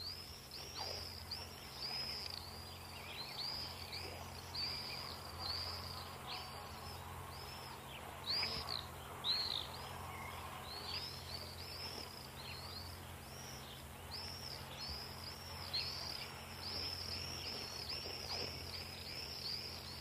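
Swifts calling: a steady stream of short, thin, high calls, each rising and then falling, coming roughly two a second and sometimes overlapping as several birds call together.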